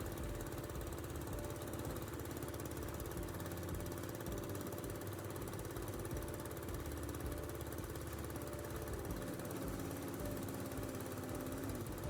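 Concrete block factory machinery running with a steady, unchanging mechanical drone.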